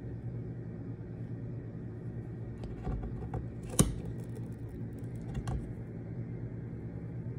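Tabby cat moving in a cardboard box and mouthing its rim: a few soft cardboard scrapes and taps, with one sharp click just under four seconds in, over a steady low hum.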